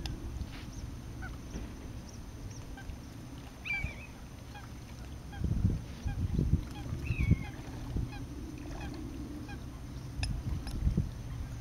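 Wind buffeting the microphone in a low rumble that swells in gusts. A few short, faint bird calls sound a few seconds apart.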